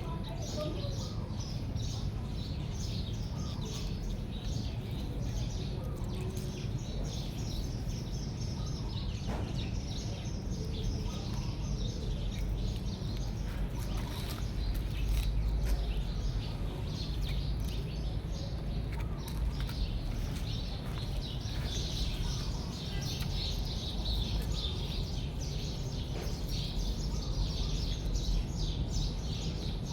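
Small birds chirping, many short high calls repeated throughout, over a steady low rumble.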